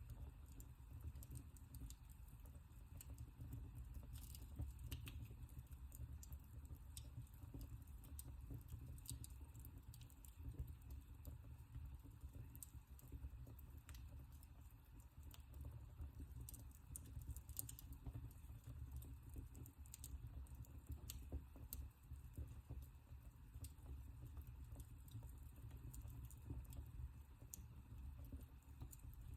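Wood fire in a fireplace crackling faintly, with irregular small pops and snaps over a low steady rumble.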